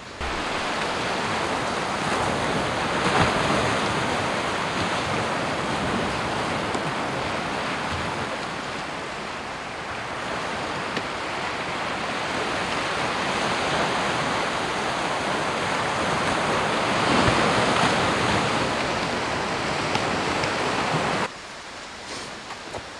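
Small waves washing onto a sandy beach: a steady rush of surf that swells about three seconds in and again near the end, then cuts off suddenly.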